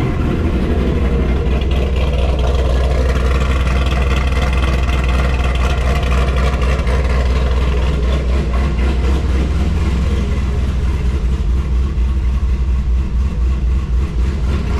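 A 2006 Corvette C6's 6.0-litre LS2 V8 running steadily at idle after a cold start. The engine is warming up on a freshly refilled cooling system.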